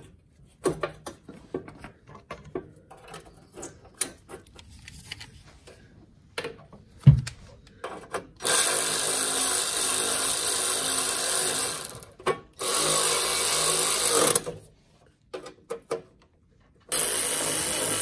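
Light clicks and clatter of tools and parts being handled, with a sharp knock about seven seconds in. Then a power driver runs on nuts and bolts in three long, steady bursts.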